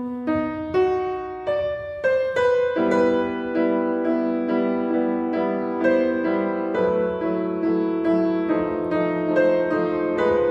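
Background piano music: a slow run of single notes, then fuller sustained chords from about three seconds in.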